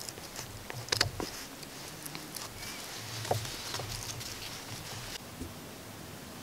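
Small metal clicks and light scrapes of disc brake pads and retaining pins being worked into a brake caliper by hand, with the sharpest click about a second in.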